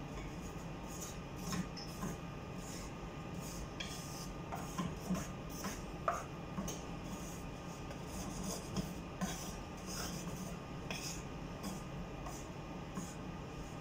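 Wooden spatula stirring and scraping dry flour in a frying pan, an irregular run of short scrapes and light knocks over a steady low hum. The flour is being dry-toasted brown.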